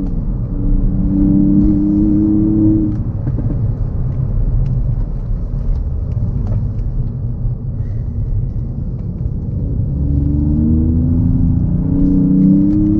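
Ford Fiesta ST mk8's 1.5-litre three-cylinder turbo engine with a modified exhaust, heard from inside the cabin: it pulls up through the revs for the first few seconds, eases off to mostly road rumble through the middle, then accelerates again near the end with its pitch rising.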